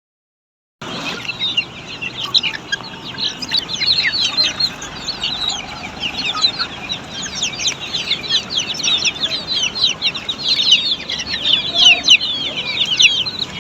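Many Black Australorp chicks peeping together, a dense chorus of short, high-pitched, overlapping peeps that starts about a second in.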